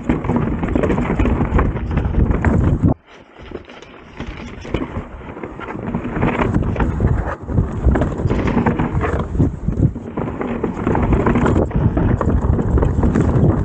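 Chainless mountain bike descending rough, rocky singletrack: tyres crunching over rock and the bike rattling and clattering with many quick knocks, with wind on the microphone. About three seconds in the noise drops away for a second or so, then builds back up.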